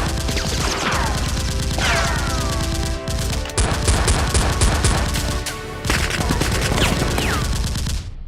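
Rapid automatic gunfire in long sustained bursts, with brief breaks about three and five and a half seconds in and a few falling whistling tones. It stops abruptly near the end.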